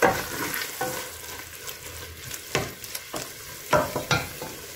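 Wooden spoon stirring and scraping a thick, sizzling tomato-and-meat pilau base in a stainless steel pot. A steady sizzle runs underneath, with a few sharper scrapes against the pot, the loudest near the start and about three and a half seconds in.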